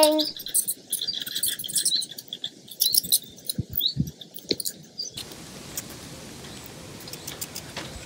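Common pipistrelle bats roosting in a wooden bat box, chittering with rapid high-pitched squeaks and clicks. About five seconds in the sound cuts to a steady faint hiss with a few soft clicks.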